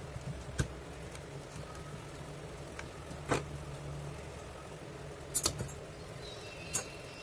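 Scattered small clicks and taps of a screwdriver, hacksaw blade, bolt and wooden parts being handled while the blade is fitted into a wooden holder, with a sharper knock about three seconds in and a quick double click later. A steady low hum runs underneath.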